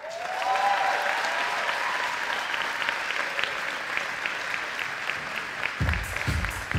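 Audience applauding, with a few cheering voices in the first couple of seconds. Music with a steady beat starts about six seconds in.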